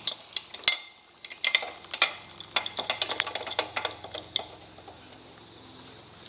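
Metal spanners clinking and rattling against other hand tools as one is picked out, a quick run of sharp clinks that stops about four and a half seconds in.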